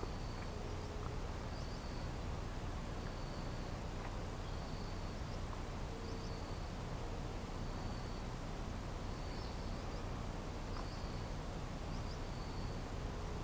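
A small animal chirping faintly: a short, high chirp repeated about once a second over a steady outdoor hush.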